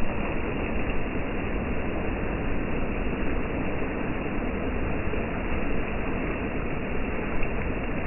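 Shallow surf washing in over sand at the water's edge: a steady rushing noise, with one brief louder moment near the end.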